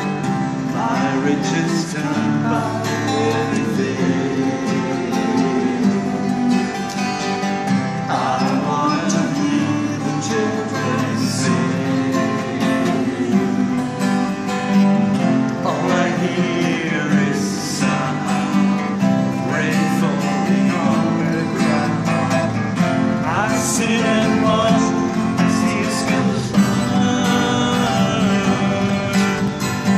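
Two acoustic guitars played together in a song, with a man singing.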